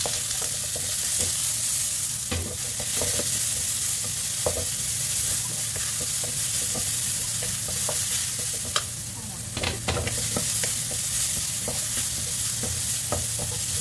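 Sliced onion and garlic sizzling in olive oil in a stone-coated wok, stirred with a wooden spatula that scrapes and taps against the pan at irregular moments.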